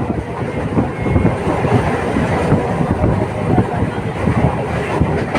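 Local passenger train running at speed: a steady rumble of the moving coach with frequent short knocks and rattles.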